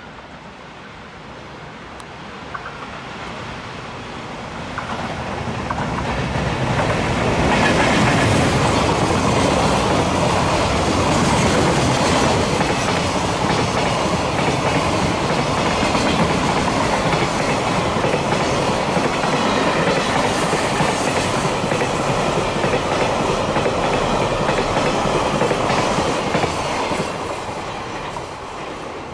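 Container freight train hauled by a JR Freight EF510 electric locomotive passing at speed: it grows louder over the first several seconds as the locomotive arrives, then a long run of wagons with steady rhythmic wheel clatter over rail joints, fading as the tail passes near the end.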